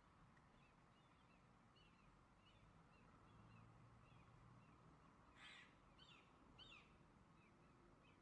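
Faint birdsong: a small bird repeating short high chirps about every half second, and a little over five seconds in, three short harsh caws from a crow.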